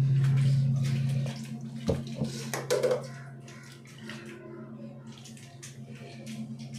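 Water splashing and running on a tiled bathroom floor during a dog's bath, in irregular spurts, over a steady low hum that drops away about a second in.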